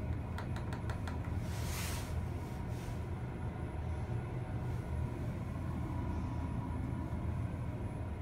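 JES passenger elevator car travelling upward: a steady low rumble and hum of the ride, with a few faint clicks in the first second.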